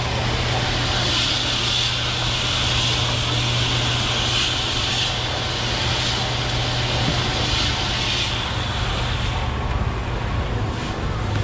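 Steady low mechanical hum under a hiss, the hiss dropping away about nine and a half seconds in.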